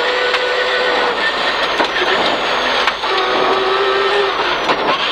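Peugeot 306 rear-wheel-drive rally car heard from inside the cabin, its engine note holding and then shifting pitch through a tight hairpin. It runs over a steady wash of tyre and gravel noise, with a few sharp knocks.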